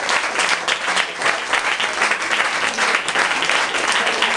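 Audience applauding steadily: many hands clapping at once, keeping up throughout.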